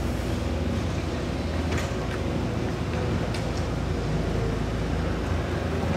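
Steady low mechanical rumble, with a few faint clicks about two and three and a half seconds in.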